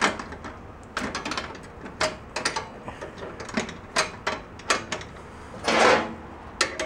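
Sharp metallic clinks and clicks of a wrench on the nut and rod end of a snowblower's shift linkage as it is tightened back together, a few a second and irregular. A longer rasping rattle about six seconds in is the loudest sound.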